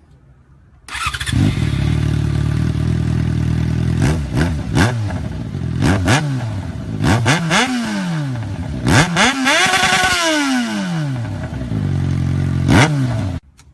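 Kawasaki Z1000's inline-four engine through an Akrapovič exhaust, idling and being revved in quick throttle blips and a few longer revs that rise and fall. It comes in suddenly about a second in and cuts off just before the end.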